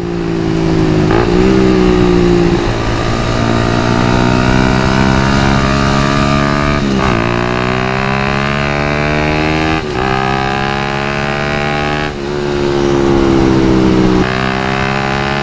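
Suzuki Satria FU's 150 cc single-cylinder four-stroke engine running under way while the bike is ridden. Its pitch climbs steadily and then drops back sharply about five times.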